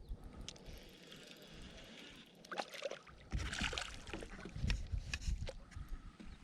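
Water splashing and sloshing around a kayak in uneven bursts, with scattered clicks and knocks, while a hooked fish is fought close to the boat.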